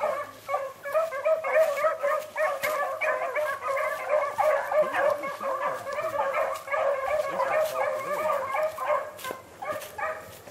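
A pack of beagles baying on a rabbit's trail, many voices overlapping in a steady chorus that thins near the end.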